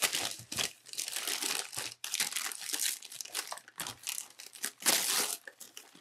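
White tissue-paper wrapping crinkling and rustling in irregular bursts as it is pulled open and crumpled by hand, loudest about five seconds in.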